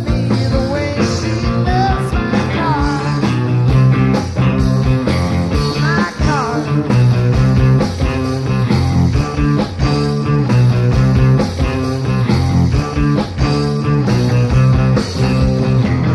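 Live rock band playing: a steady drum beat and bass under a lead line that slides and bends in pitch.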